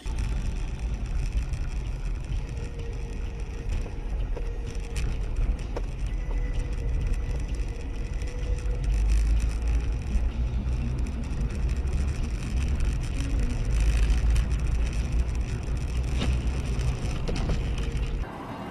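Steady low engine and road rumble of a moving car, heard from inside the cabin through a dashboard camera, with a few faint clicks.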